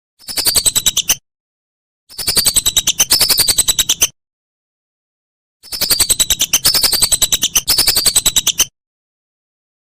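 Whistling duck calling: fast runs of short, high whistled notes, each sliding slightly down in pitch, in three bursts of about one, two and three seconds with dead silent gaps between them.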